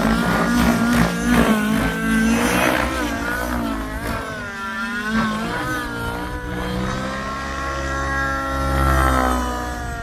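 Nitro glow engine and rotor of an XL Power Specter V2 radio-controlled helicopter in aerobatic flight, the engine note swooping up and down in pitch as it maneuvers. It dips in loudness about halfway through and swells again near the end.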